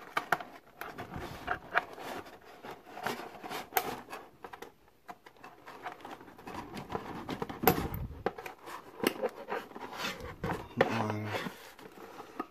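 Scissors clicking and scraping against a stapled cardboard box, with the cardboard rustling and knocking as it is handled; irregular clicks and short scrapes, the scissors not managing to cut through.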